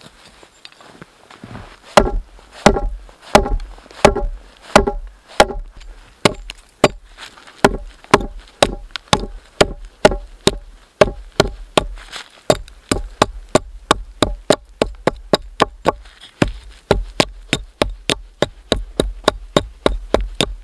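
Hatchet chopping a notch into a small log lying on snow, with sharp, evenly spaced blows. The chops begin about two seconds in and get quicker later on.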